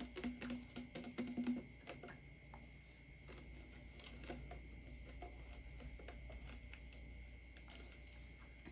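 Background music with a wood-block beat cuts off about a second and a half in; after that, faint scattered light taps and clicks.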